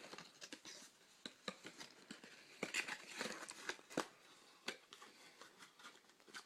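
Speed cube packaging being opened by hand: irregular clicks, taps and short rustles as the package is handled.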